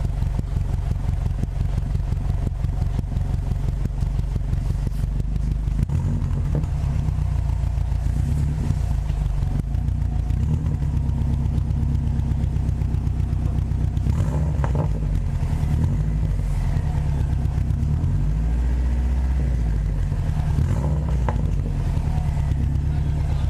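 Subaru WRX turbocharged flat-four engine and exhaust heard on a test drive, with a downpipe-to-cat-back flange adapter fitted to cure an exhaust leak. A steady low drone, with a fast pulsing for the first several seconds that then smooths out.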